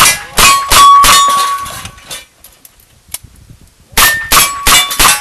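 Rapid revolver shots with steel targets ringing on each hit, one ring drawn out for about a second. After a pause of about two seconds another fast string of shots and steel rings begins.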